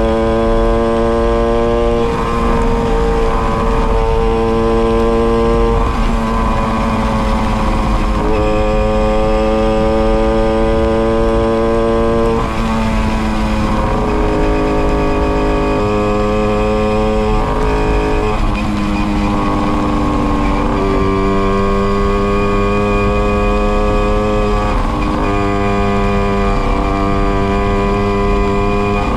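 Tomos moped's small two-stroke engine with a Tecno Bullet exhaust, buzzing steadily under way. Its pitch holds level for a few seconds, then drops or climbs as the throttle changes, several times.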